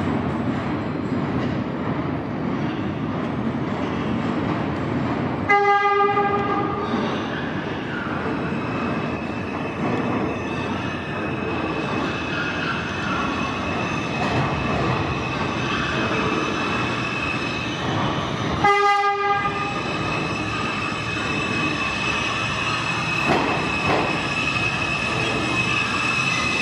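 New York City subway train running through the station, sounding its horn in two short blasts, about five seconds in and again about nineteen seconds in. A steady high whine joins the running noise over the second half.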